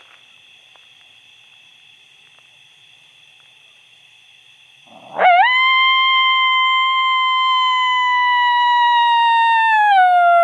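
Coyote howl blown on a mouth-blown predator call, a locator howl meant to make coyotes answer and give away where they are. About five seconds in it sweeps up sharply into one long held note whose pitch slowly sags, then bends downward at the very end.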